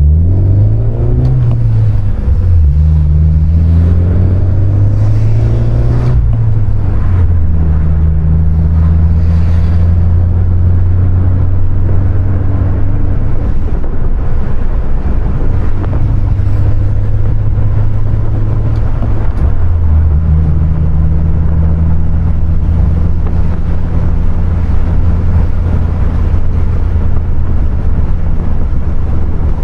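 2020 Honda Civic Si's 1.5-litre turbocharged four-cylinder engine under way with its manual gearbox: the engine note rises in short pulls over the first several seconds, drops as gears are changed, then holds steady, with one more drop in pitch about two-thirds of the way through.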